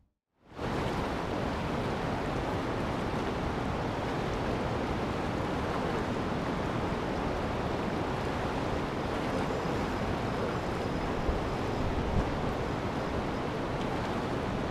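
Steady rushing noise of fast river current and wind, with wind buffeting the microphone; it comes in after a half-second of silence at the start.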